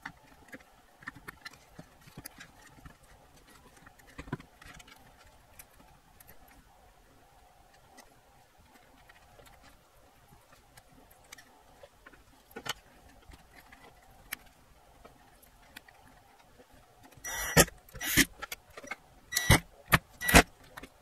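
Faint clicks and taps of plastic parts and cables being handled. About four seconds before the end, a cordless drill-driver runs in several short bursts, driving screws back into the soundbar case.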